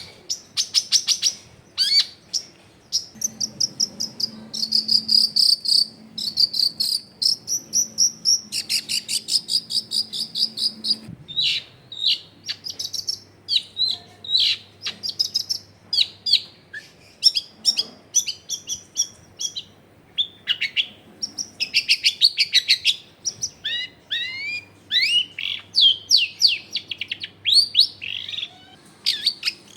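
Long-tailed shrike (cendet) singing a fast, varied song. It opens with dense rapid trills and buzzy repeated notes, then breaks into quick separate chirps and falling whistles.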